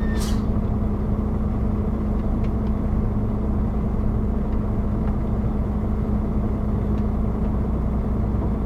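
HGV lorry's diesel engine running at low speed, heard from inside the cab as a steady low rumble with an even hum. A short click sounds just after the start.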